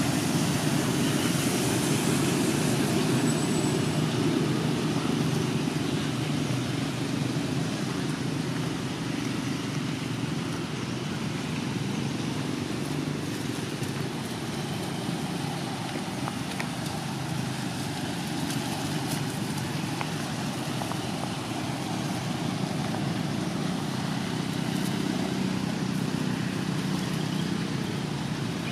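Steady rumble of road traffic, a little louder in the first few seconds as a truck passes.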